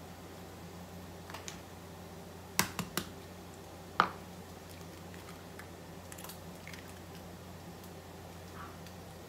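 A few sharp clicks and knocks of kitchen utensils being handled at the counter: three close together about two and a half seconds in and a louder single knock at four seconds, over a steady low hum.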